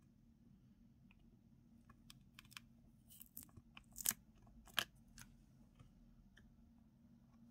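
Eyeshadow pans being pried off a cardboard palette with a small metal spatula: a quick run of small scraping clicks and cracks starting about two seconds in, the two loudest around four and five seconds in.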